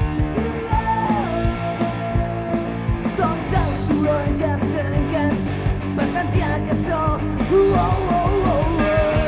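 Rock band recording playing: electric guitars, bass and drums, with a lead line of bending notes over it from about three seconds in.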